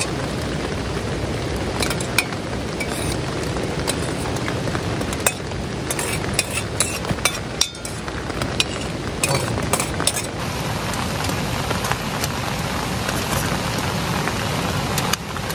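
Metal spoon scraping and clinking against a steel bowl and a cooking pot, with a run of sharp clinks around the middle, over a steady hiss.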